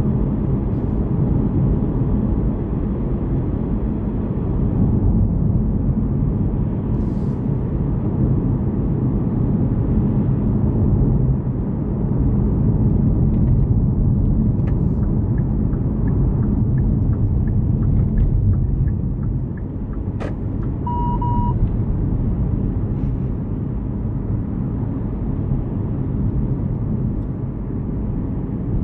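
Steady low road and tyre rumble heard inside the cabin of a Hyundai Kona Hybrid under way, with a click and then a short single beep about two thirds of the way through.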